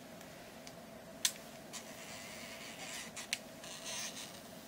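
Zoom lens motor of a Sony Cyber-shot DSC-W50 compact camera, a faint whirring in short spells with a few sharp clicks, as the lens zooms in and out. The lens is noisy and sluggish from heavy use.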